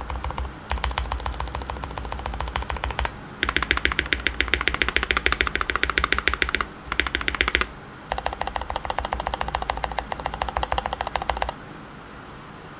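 Fast typing on a custom TOFU68 mechanical keyboard with lubed, filmed SP-Star Purple switches on an aluminium plate and GMK Red Samurai keycaps: rapid runs of keystrokes in several bursts with brief pauses. The typing stops shortly before the end.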